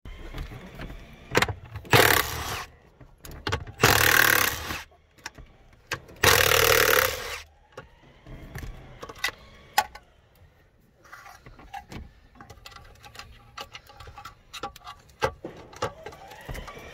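A Milwaukee cordless impact tool runs in three short bursts of about a second each, working the bolts that hold a car's SRS airbag control module. Clicks and rattles of hands and parts around the module come between the bursts and after them.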